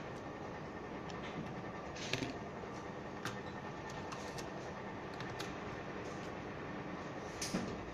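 Scattered light clicks and taps as hands handle a circuit board in an aluminium case and a small part, over a steady background hiss.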